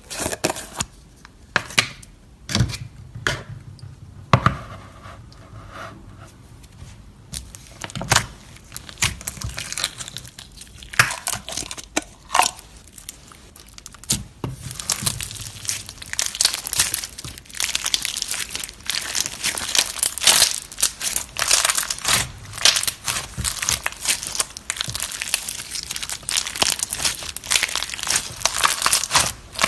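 Slime being squeezed and pressed, with scattered sharp pops and squelches at first and then a dense, continuous crackle of many small clicks from about halfway through.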